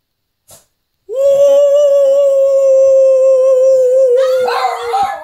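Shih tzu howling: one long, steady howl starts about a second in and holds its pitch for about four seconds, then a second, wavering howl joins near the end and the pitch breaks up and down.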